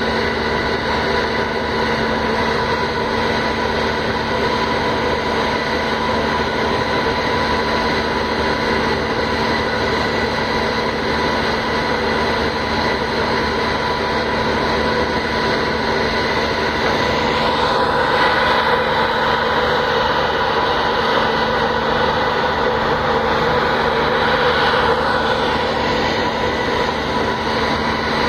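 Steady drone of a berthed ferry's machinery running, a low rumble with several steady humming tones on top, swelling slightly partway through.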